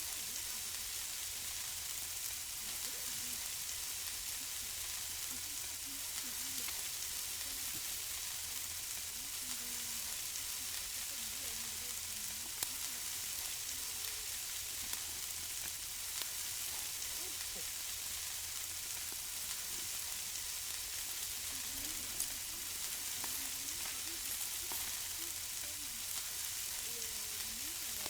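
Food sizzling on a barbecue grill: a steady hiss with a few sharp pops of fat.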